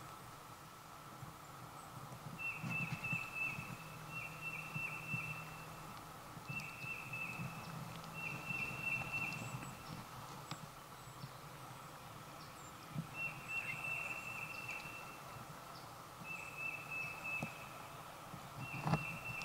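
Woodland ambience: a songbird repeats a short, high trilled phrase every couple of seconds, with occasional soft low thumps.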